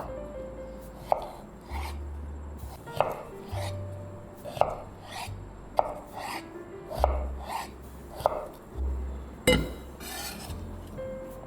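Knife chopping food on a cutting board in slow, single strokes, about eight sharp chops roughly one every second or so. Background music plays underneath.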